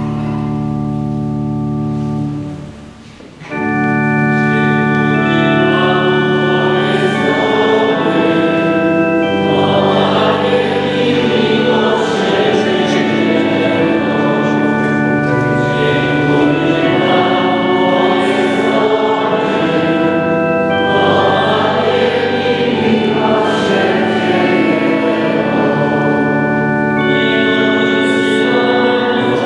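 Church pipe organ holding chords, breaking off briefly about three seconds in, then accompanying many voices singing a hymn together.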